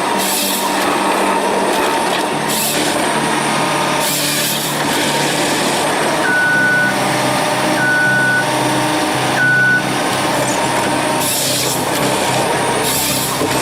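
Heavy machine's engine running steadily under load, with short hissing bursts now and then and a reversing alarm beeping three times, about a second and a half apart.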